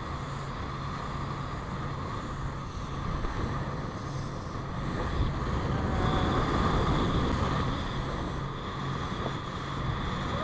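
Motorboat engine running steadily at speed, with wind buffeting the microphone and water rushing past the hull. The rush of water and spray grows louder about halfway through, then eases.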